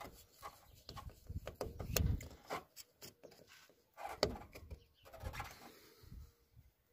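Flat screwdriver turning the worm screw of a metal hose clamp to tighten it on a rubber air-intake hose: scattered small clicks and scrapes, with a louder knock about two seconds in and another about four seconds in.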